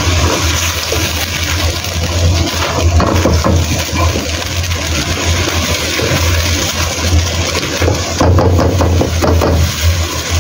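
Pork ribs bubbling and sizzling in a shallow marinade sauce and water in a wok, with a silicone spatula stirring and scraping against the pan, more sharply near the end. A steady low hum runs underneath.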